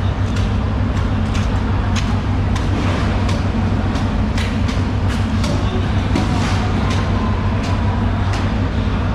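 A steady low rumble with irregular sharp clicks and knocks over it.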